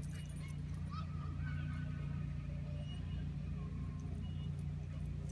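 Steady low mechanical hum, like an engine running at a distance, with a few faint high chirps about a second in.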